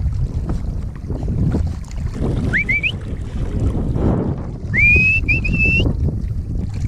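River water sloshing and lapping right at a camera held at the surface, with wind buffeting the microphone. Twice, a short high whistle-like tone rises in pitch, about two and a half seconds in and again near five seconds.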